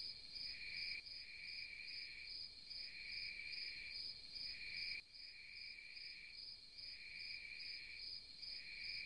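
Faint insects chirping: a steady fast trill, with a lower chirp that comes and goes in pulses of about a second.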